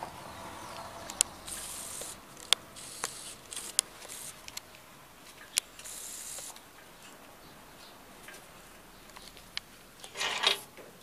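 Small clicks, ticks and short scrapes of a coaxial cable's threaded F-connector being handled and screwed onto a satellite dish LNB, with a louder rustle near the end.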